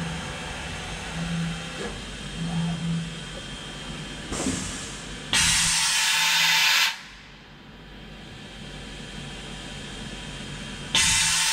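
Compressed air hissing loudly in two bursts of about a second and a half each, about five seconds apart, from a Bridgeport VMC 500/16 vertical machining centre under power-up test. Between the bursts the machine hums steadily, with an on-off low tone in the first few seconds.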